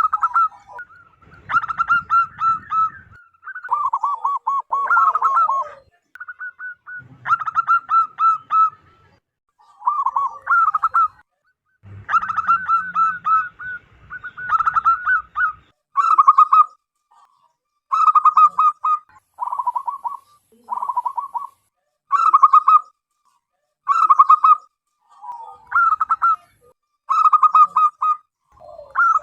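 Zebra dove singing loudly: short phrases of rapid staccato cooing notes, repeated every one to two seconds.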